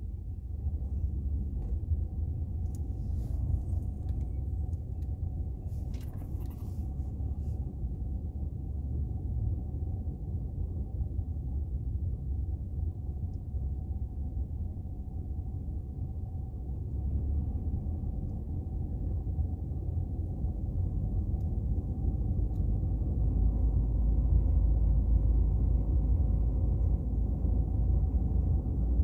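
Low, steady rumble of a car's engine and road noise heard inside the cabin in stop-and-go traffic, growing louder near the end.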